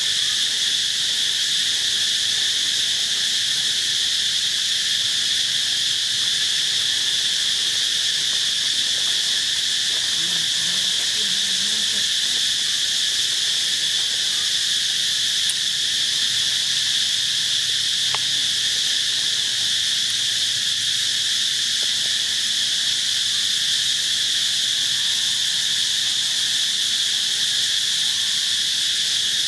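Steady insect chorus: one unbroken, high-pitched drone that holds an even level throughout.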